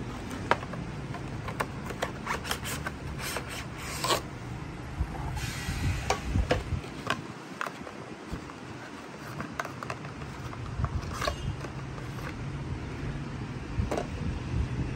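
Plastic packaging of a soldering iron being opened and handled: rubbing, scraping and scattered clicks of the clear plastic case, with a denser rasping stretch about five to six seconds in. A steady low hum runs underneath.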